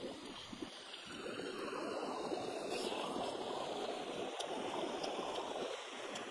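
A flowing stream: a steady rush of running water that swells and eases slightly, with a few faint clicks.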